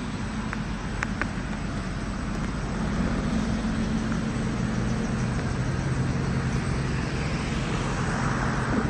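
A 1998 Corvette's 5.7-litre LS1 V8 idling steadily. It gets a little louder from about three seconds in, as the exhaust outlets at the rear of the car come close.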